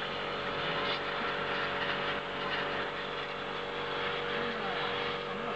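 Electric 1/10-scale 2WD RC buggies racing round a dirt track: a steady mix of motor and gear whine and tyre noise.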